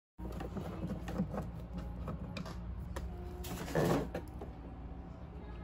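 Light clicks and scraping of a screwdriver and hard plastic dashboard panels being handled, over a steady low hum, with a louder scrape about four seconds in.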